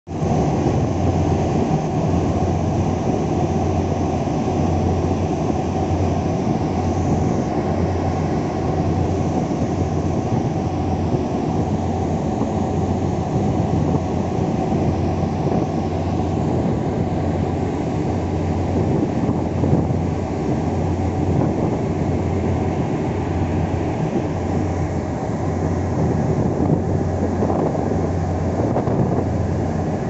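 A passenger vessel's engine running under way: a steady low drone, mixed with water rushing along the hull and wind on the microphone.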